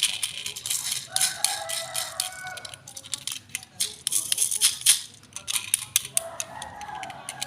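Quick, irregular plastic rattling and clicking as a toy RC rock crawler car and its packaging are handled.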